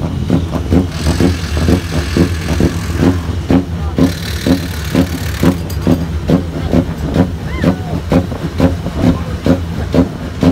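Toyota Corolla touring car's race engine idling on the grid with a lumpy, loping beat, about two to three surges a second.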